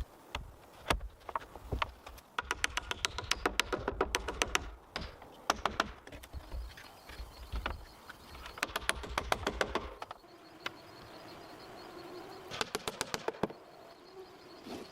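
Bursts of fast, sharp knocks, several in a row at a time, separated by short pauses, with a faint steady high tone in the second half.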